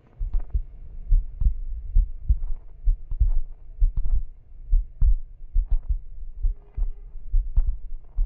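A run of irregular low thumps and knocks, about two or three a second, some sharper than others.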